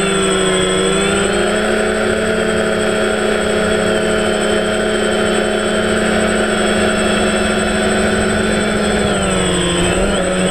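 Electric motors and propellers of a small camera drone, heard through its onboard camera, running with a steady buzzing whine. The pitch dips briefly near the start and again near the end as the throttle eases, over a thin high steady whistle.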